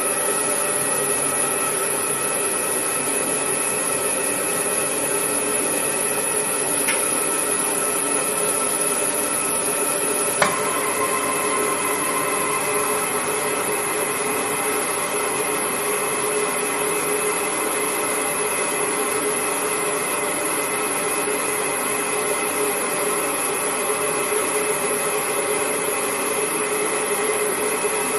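Steady gas-flow hiss with a few held tones from the burner of a PG Instruments AA500 atomic absorption spectrometer, with a single sharp pop about ten seconds in as the flame ignites, after which the flame burns steadily.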